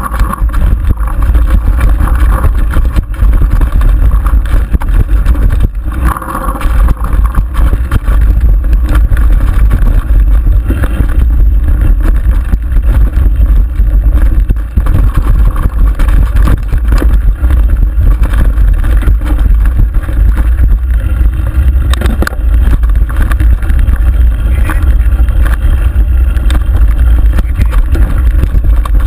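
Mountain bike descending rough dirt singletrack at speed, heard through the rider's action camera: a loud, steady low rumble of wind and trail noise on the microphone, with scattered knocks and rattles from the bike over rocks and bumps.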